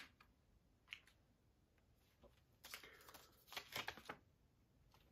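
Faint handling noises from a Blu-ray SteelBook case being opened and its contents handled: a few short clicks and rustles, with a denser cluster about three to four seconds in.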